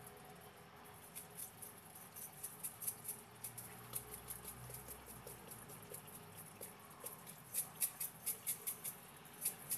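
Thick, cornstarch-thickened sauce simmering in a pot, with irregular small pops and crackles as bubbles burst at the surface; the pops come more often in the last few seconds.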